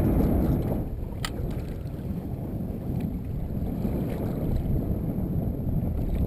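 Wind buffeting the microphone of a kayak-mounted action camera, a steady rumble over the sea. A single sharp click about a second in.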